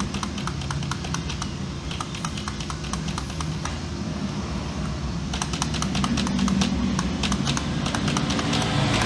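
Keys on an external keyboard clicking as they are pressed over and over to test it, faster from about halfway in, over a low steady rumble that grows louder near the end.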